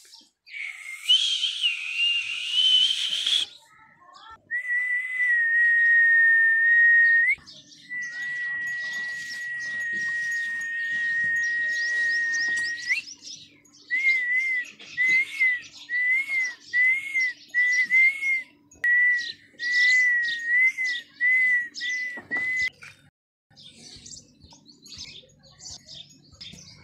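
A high, clear whistle held on one steady pitch for several seconds, twice, then two runs of short wavering whistled notes, about one and a half a second, with faint chirping behind.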